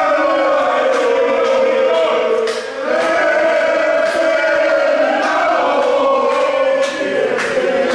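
Football fans chanting together, many male voices holding long sung notes, echoing in a pedestrian underpass.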